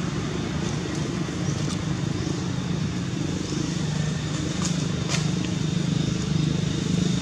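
A steady low motor hum, like an engine running, with two short sharp clicks a little past halfway.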